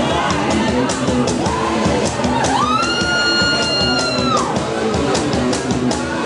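Live acoustic rock band playing, with guitar and a steady beat. About two and a half seconds in, a high voice rises into one long shouted note, holds it for nearly two seconds, then drops off.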